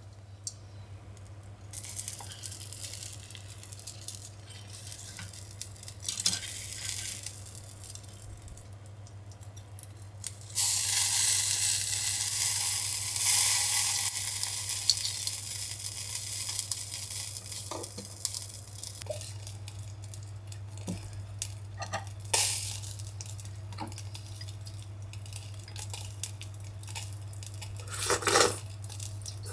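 Yellowtail collar grilling on a tabletop charcoal shichirin, its fat dripping onto the hot charcoal and sizzling, with scattered sharp pops. The hiss swells loudest about ten seconds in for a few seconds, then settles into a lighter sizzle and crackle.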